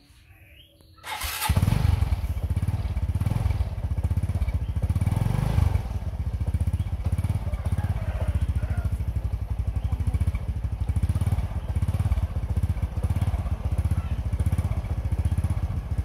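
A Honda step-through motorbike's small engine starting about a second in, then running at a steady idle with a fast even pulse, a little louder over its first few seconds.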